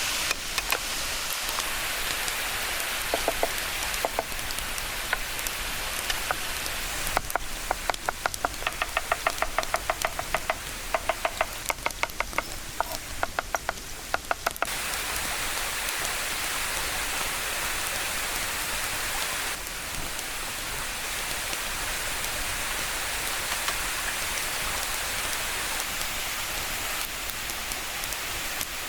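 Steady rushing of a waterfall. Partway through, a quick run of even taps, about five a second, goes on for some seven seconds and then stops.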